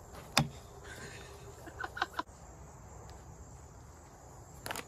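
A single sharp knock about half a second in: the pitched plastic wiffle ball making contact at the plate. A few softer clicks follow near the end.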